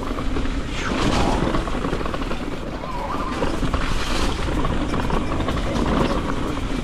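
Electric mountain bike rattling and clattering over a rough trail, with many sharp knocks from tyres and frame, and wind rumbling on the action camera's microphone.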